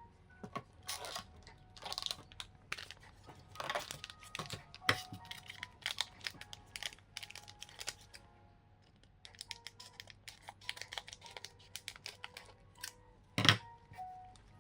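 Booster pack wrapper crinkling and tearing, and trading cards being handled and shuffled through, as a string of short rustles and clicks. There is one sharp knock near the end.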